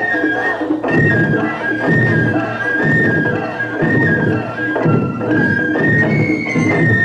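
Ensemble of Japanese taiko drums (wadaiko) beaten with sticks in a driving rhythm. The phrases break briefly about every second. Over the drums, a high flute melody steps between a few notes.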